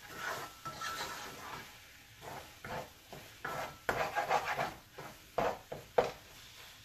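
Wooden spoon stirring and scraping chopped onions around an aluminium pot in irregular strokes, with a few sharper knocks of the spoon against the pot. The onions are being cooked down and are starting to change colour.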